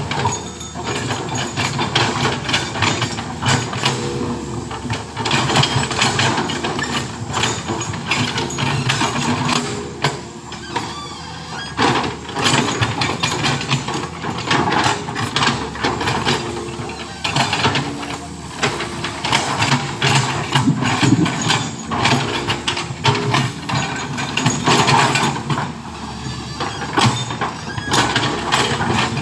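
Heavy machinery engine running steadily, with frequent clanks and rattles of metal and gravel.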